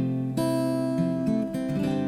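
Background music: acoustic guitar strumming and picking, with notes changing about every half second.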